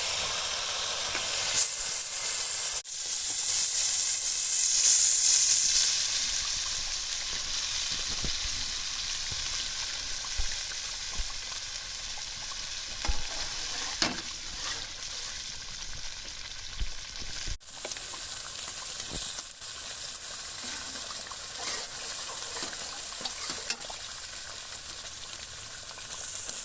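Ginger-garlic paste frying in hot oil in a cooking pot, a steady sizzle with occasional clicks of stirring.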